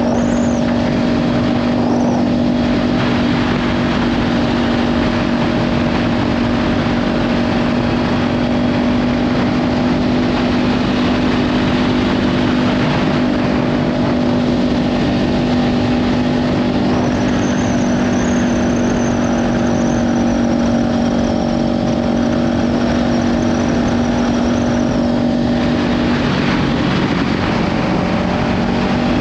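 Kawasaki Ninja 500's parallel-twin engine, through a LeoVince slip-on exhaust, running at a steady cruise with heavy wind noise on the microphone. The engine note shifts slightly near the end, and a thin high whistle sounds for several seconds in the latter half.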